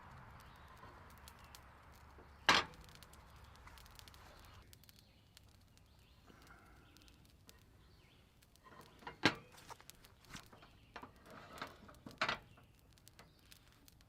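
Sharp knocks and clatter: one loud knock about two and a half seconds in, then a run of knocks in the second half with two loud ones, over a faint steady hiss that stops about a third of the way in.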